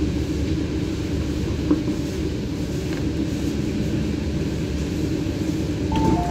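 Steady low rumble and hum inside the car of an MTR Rotem EMU train. Near the end, a two-tone electronic chime begins as the doors are about to open.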